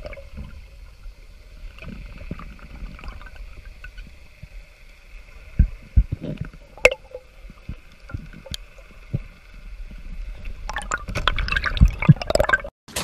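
Underwater sound picked up by a diver's camera: a low water rumble with scattered sharp knocks and clicks. The loudest knocks come a little after halfway, and a dense crackle of clicks follows near the end.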